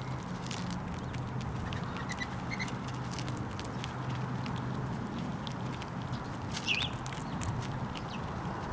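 Fox squirrel rooting through loose birdseed and cracking seeds on a wooden platform feeder: a run of small clicks and rustles over a steady low hum, with a short high bird chirp about seven seconds in.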